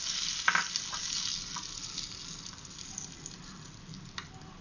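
Hot tempering oil sizzling in wet onion chutney as a spoon stirs it in a glass bowl. The sizzle dies away. The spoon clicks against the glass a couple of times, sharply about half a second in and again near the end.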